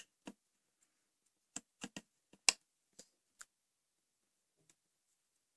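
Light clicks and taps of fingers, nails and rubber bands against the clear plastic pegs of a Rainbow Loom as loom bands are stretched onto the pegs, about eight separate clicks in the first three and a half seconds, the loudest about halfway through.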